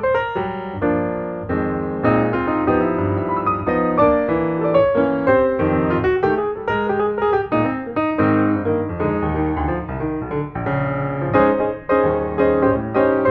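Background piano music, a busy, continuous stream of notes.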